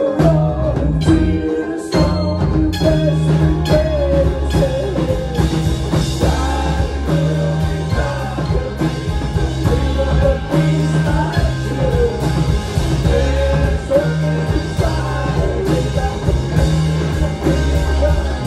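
Live country-rock band playing, a man singing lead over banjo, guitars, pedal steel and a drum kit, with a heavy, steady bass.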